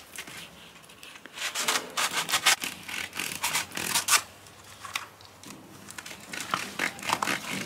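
Irregular rustling and rubbing with small clicks and scrapes, as of something being handled, thickest in the first half and picking up again near the end.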